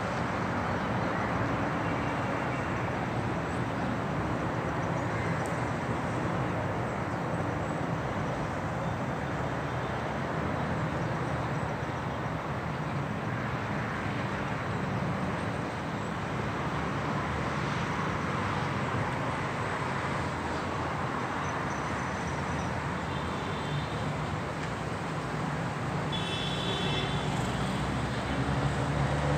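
Steady city road traffic: a continuous rumble of car engines and tyres on an urban avenue. A few faint, brief high chirps can be heard near the end.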